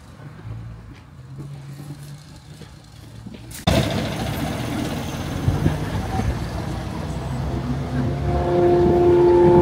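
Street traffic noise: a low steady hum, then a sudden jump to loud traffic about four seconds in. A long, steady, horn-like tone comes in near the end and keeps sounding.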